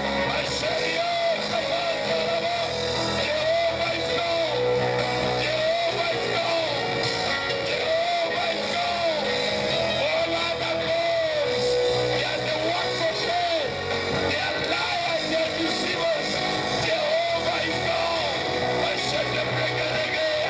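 Music with guitar, carried by a melody line that rises and falls in smooth arches.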